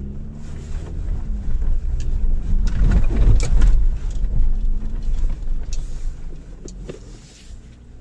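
Off-road SUV engine revving hard under full throttle as it charges up a soft sand slope, with sand spraying from the spinning tyres. The engine is loudest about three to four seconds in, then fades as the vehicle tops the hill.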